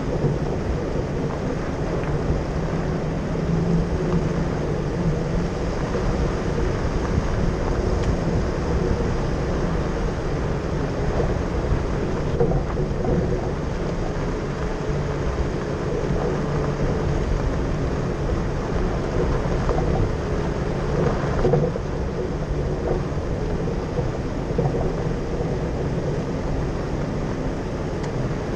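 Jeep driving along a dirt road: the engine runs steadily under a low rumble of tyres on gravel and wind.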